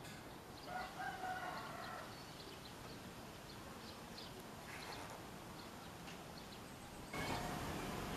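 A rooster crowing once, faint and distant, about a second in, with small birds chirping here and there. A steady rushing noise comes up near the end.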